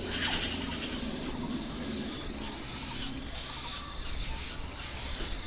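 Red-billed blue magpies at the nest giving rapid harsh chattering calls, loudest in the first second, followed by scattered short calls, over a steady low hum that fades out about three seconds in.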